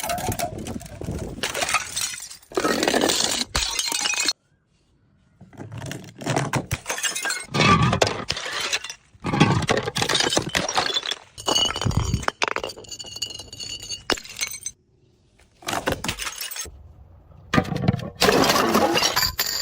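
A rapid series of glass bottles smashing and shattering, clip after clip, each a loud crash of breaking glass with tinkling shards, separated by brief silent cuts. Just past the middle, a stretch of clear, high ringing tones from glass.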